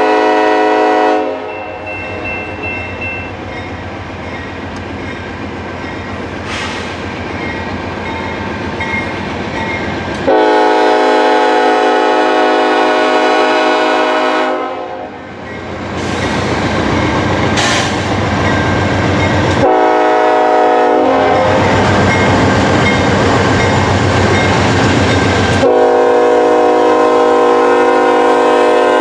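Diesel freight locomotive's multi-chime air horn blowing a long blast that ends about a second in, another long blast around the middle, a short one, then a long blast near the end. Between the blasts comes the steady rumble of the locomotives and the rolling freight cars of a long train climbing a grade.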